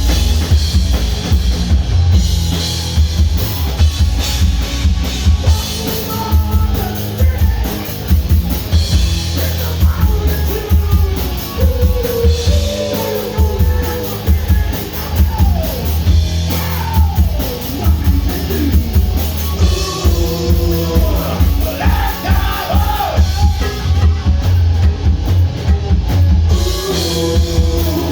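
Hard rock band playing live at full volume: drum kit, bass and electric guitars, with a melodic line bending up and down in pitch over them.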